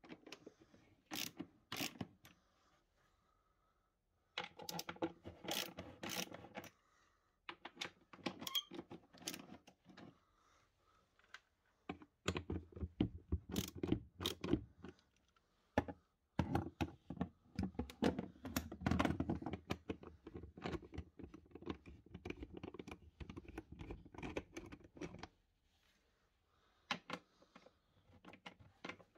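Socket ratchet clicking in several long runs of rapid ticks as it is turned back and forth, undoing the bolts that hold a scooter's plastic underseat storage bin. Single metallic clicks and taps fall between the runs.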